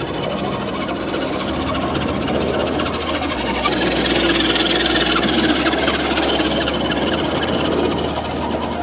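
Radio-controlled 6x6 scale truck's electric motor and gearbox whirring as it drives over sand and gravel. It gets louder in the middle and eases off near the end.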